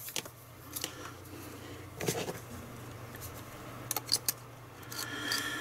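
Scattered light clicks and taps of steel pliers and hands working the metal nozzle of an electric desoldering pump, over a faint steady low hum.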